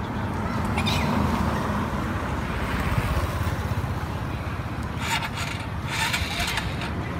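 Long-tailed macaque gnawing and tearing at a dry bamboo stick: crackling and scraping in short bursts about one, five and six seconds in, over a steady low rumble.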